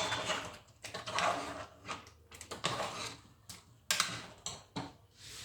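Irregular light knocks and scrapes of a cooking utensil against a pot of stew, with a few sharp clicks about a second in and again near four seconds.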